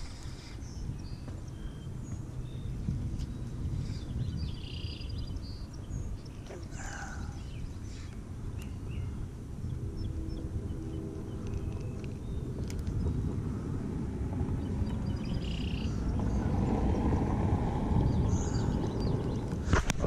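Wind rumbling on the microphone, with a few faint, short bird calls now and then.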